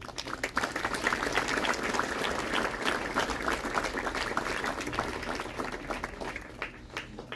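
A crowd clapping, swelling within the first second, holding steady, then thinning out over the last second or so.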